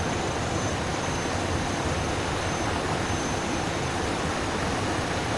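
Waterfall and stream water rushing in a steady, even roar of white noise.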